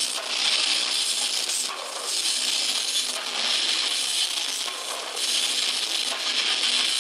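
A metal band playing live, heard through an overloaded camera microphone as a harsh wash of distorted guitars and cymbals with almost no bass, swelling and dipping every second or two.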